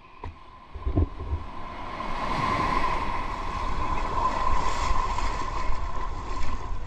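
Small waves washing in shallow surf with wind buffeting the microphone, the noise building over the first couple of seconds and then holding steady. A thin steady tone runs underneath.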